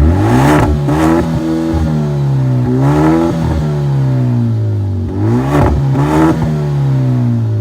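Car engine being revved three times: each time the pitch climbs quickly, then sinks slowly back as the revs fall.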